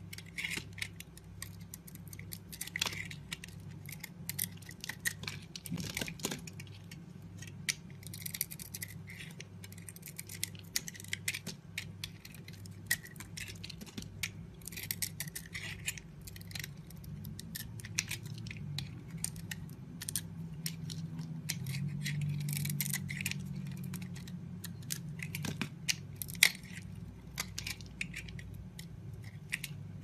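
Utility knife blade slicing and scraping shavings off a bar of soap: many crisp, crackling cutting strokes at an uneven pace, a few of them longer scrapes. A low steady hum runs underneath.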